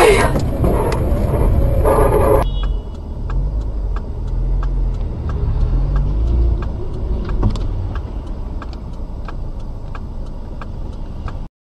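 Loud tyre and engine noise inside a car driving fast on a wet highway, cutting off abruptly about two seconds in. Then a quieter engine and road rumble inside another car in slow traffic, with a steady ticking about twice a second.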